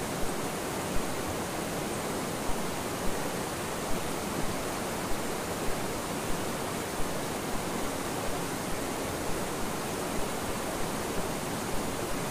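Steady rush of a rocky river, water running over and between boulders, with small irregular splashes standing out above it.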